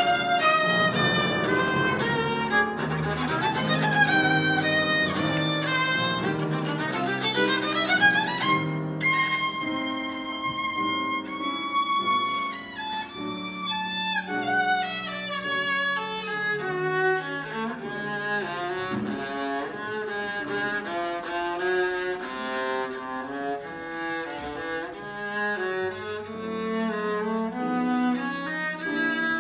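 Viola playing with piano accompaniment: fast runs of bowed notes, including a quick rising scale about eight seconds in and falling runs in the middle, over piano chords.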